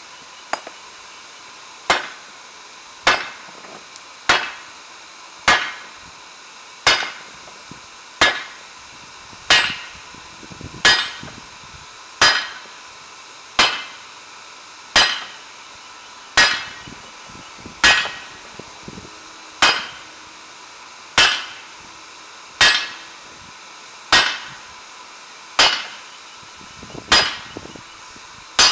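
Hand-forging of a red-hot Zweihander blade: a hammer strikes the hot steel on a round steel block anvil in a steady, even rhythm of about one blow every second and a half. Each blow is a sharp strike with a short ring that quickly dies away.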